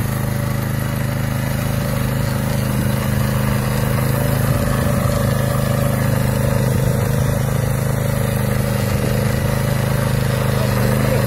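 Engine of a BCS Ferrari two-wheel walking tractor running steadily while driving a rotary tiller that churns the soil.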